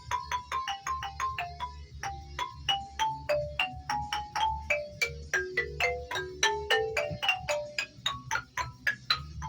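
Fast run of struck, pitched percussion notes, about four or five a second, each ringing only briefly, the melody stepping down and then back up, over a steady low bass backing.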